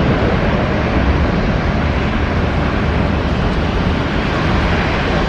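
Jet airliner engine noise mixed with strong wind, a loud, steady roar with no distinct whine.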